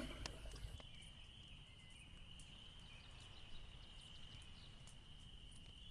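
Near silence: faint room tone with a thin, steady high-pitched tone and a few faint ticks.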